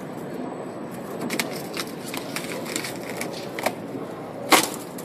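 Stretch-wrap machine running with a steady mechanical noise and scattered crackling clicks, then one sharp knock about four and a half seconds in.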